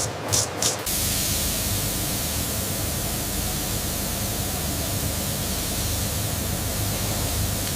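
A steady, even hiss with a low hum beneath it. In the first second, rhythmic swishing pulses, about three a second, stop abruptly as the hiss takes over.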